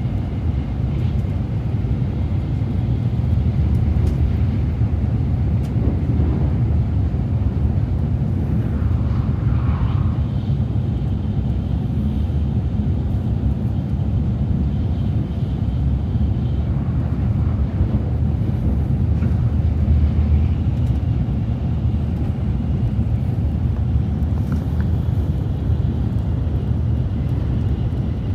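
Shinkansen bullet train running at speed, a steady low rumble heard from inside the passenger cabin.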